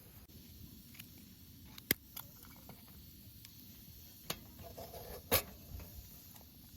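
Wood fire crackling: a few sharp, separate pops and snaps of burning firewood over a low, steady background.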